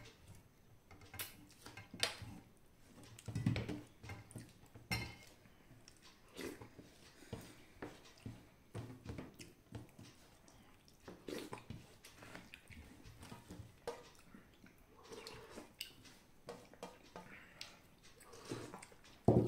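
A person eating with his fingers from a steel plate: soft chewing and mouth sounds with light clicks and scrapes of fingers and food on the metal plate, and one louder knock at the very end.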